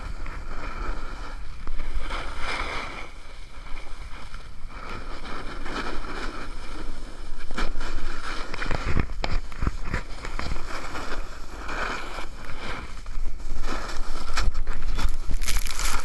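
Snowboard edges carving and scraping over packed snow, with wind rushing over the camera microphone, swelling and fading every couple of seconds with the turns. Near the end a louder, harsher rush of snow as the rider falls.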